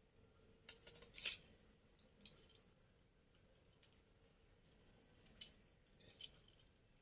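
Scattered small clicks and taps of hard parts being handled and fitted together, the loudest a little over a second in.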